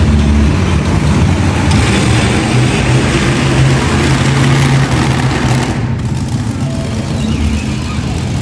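Monster truck engine running loud and steady as the truck drives around the dirt floor, with a brief break about six seconds in.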